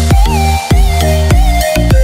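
Electronic dance music with heavy bass and a steady kick drum.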